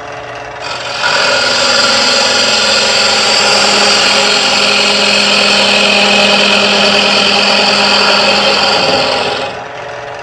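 3/8" bowl gouge cutting into the face of a spinning wooden bowl blank on a lathe, hollowing the interior. A steady, loud shearing hiss of the cut starts about a second in and stops shortly before the end, over the lathe's steady hum.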